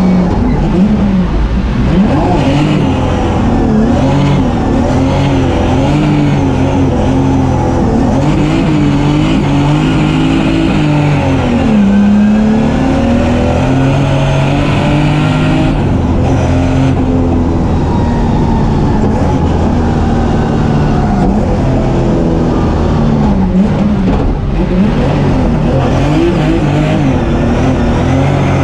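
Turbocharged BMW M3 drift car's engine heard from inside the cabin, revving hard and constantly rising and falling in pitch as the throttle is worked through slides.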